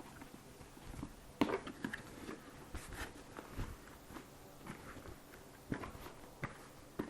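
Packaging being handled as a motorcycle helmet is unpacked from its box: scattered rustles, crinkles and small knocks, the loudest about a second and a half in.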